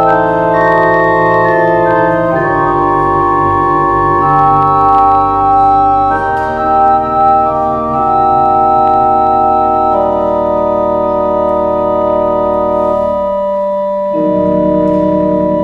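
Two-manual church organ playing slow, sustained chords that change every second or two. Near the end a lower note wavers rapidly, as with a tremulant.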